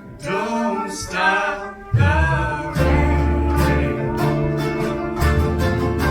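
Live band performing a song: a singer over sparse guitar, then the full band with heavy bass coming in about two seconds in.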